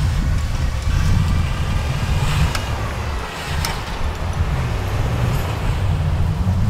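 Wind rumbling and buffeting on the microphone, with a couple of light clicks about two and a half and three and a half seconds in.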